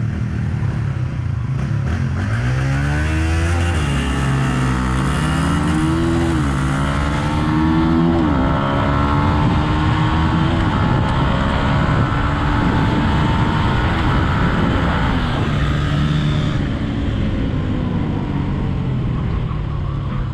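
Stock Yamaha Exciter 150 motorcycle engine launching hard from a standstill and accelerating: the engine note rises, drops at each upshift and rises again about three times in the first eight or nine seconds, then runs at a steadier high speed. Wind rushes on the microphone throughout.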